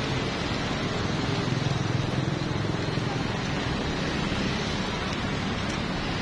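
Steady hiss of oil and takoyaki batter sizzling in a cast-iron takoyaki pan over a gas burner, with a low hum underneath.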